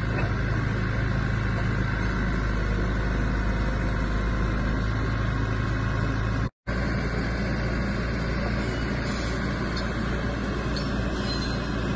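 Diesel engine of a small crawler dozer running steadily as it moves a mobile home, a low even drone. The sound cuts out completely for a split second a little past halfway.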